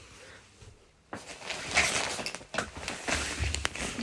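Clothes rustling as they are handled on a wardrobe rail, starting about a second in, with a few sharp clicks.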